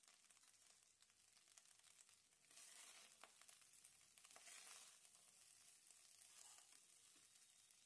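Faint sizzling of cumin rice frying in a pan, louder from about two and a half seconds in as a black slotted spatula stirs it, with a few light clicks of the spatula against the pan.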